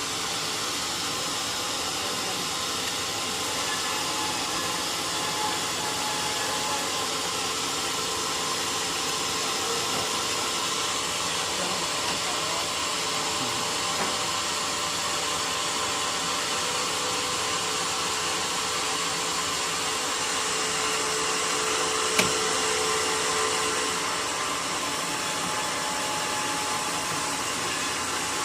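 Sawmill machinery running with a steady whirring noise, with a single short knock about 22 seconds in.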